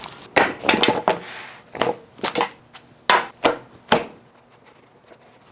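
A run of short knocks and clacks on a wooden table-top as a leather knife roll holding knives is set down and unrolled, the knives knocking against the wood.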